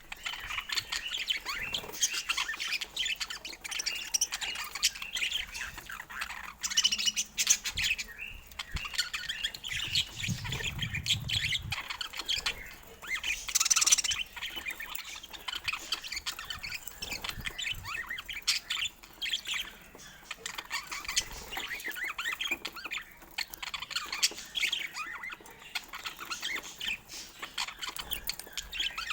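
Budgerigars chattering without pause in quick chirps and squawks, with a louder squawk about fourteen seconds in and a brief low rumble just before it.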